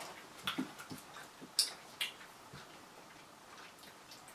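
Faint, scattered mouth clicks and lip smacks of people chewing chewy candies: a handful of short clicks, the sharpest about a second and a half and two seconds in, thinning out after that.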